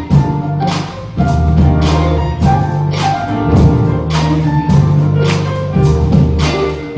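Instrumental music with a steady drum beat, held bass notes and a melody on top.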